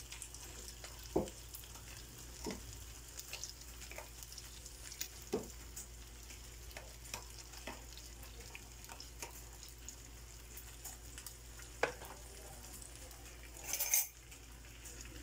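Raw shrimp scraped with a spoon from a bowl into a frying pan of hot garlic and tomato-paste sauce: a faint sizzle throughout, with scattered clicks and soft knocks of the spoon on the bowl and pan. A brief louder noise comes near the end.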